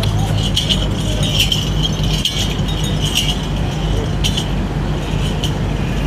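Small metal bells and dangling chains on a bull's decorated collar jingling and clinking irregularly as the animal moves its head and neck, over a steady low hum.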